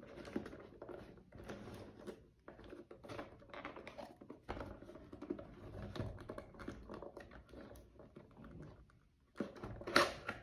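Cardboard CPU retail box handled and turned over in the hands, giving small irregular rustles and scrapes as fingers pick at the seal sticker, with a louder scrape near the end.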